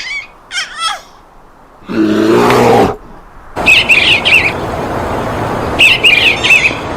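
A string of sound effects built from bird calls. Short chirps come first, then a loud harsh burst about two seconds in. After that a steady rushing noise runs, with squawking calls over it twice.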